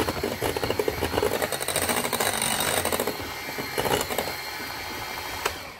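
Electric hand mixer running steadily, its beaters whirring through cupcake batter in a mixing bowl.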